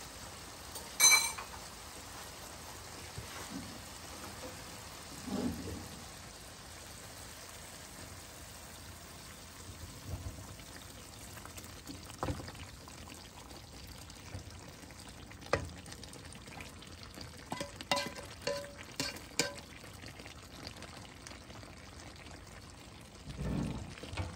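Chopped vegetables being scraped with a slotted spoon out of one nonstick pan into a pan of simmering beef-shank stew, then stirred: scattered scrapes and knocks of spoon against pans over a low steady simmer. The loudest sound is a sharp, ringing clink of cookware about a second in.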